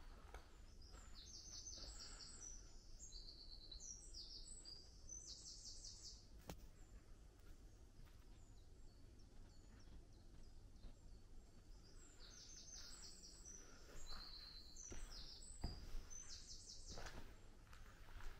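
A small songbird singing, a high, fast song made of several quick trilled phrases, heard twice, over faint background hiss.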